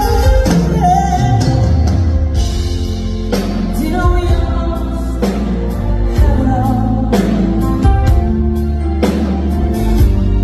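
A woman singing a slow soul ballad live into a microphone, backed by a band with steady bass and a drum beat about once a second.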